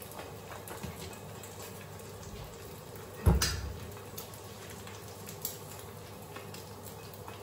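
Egg frying in a little olive oil in a pan, a steady sizzle, with one loud knock about three seconds in.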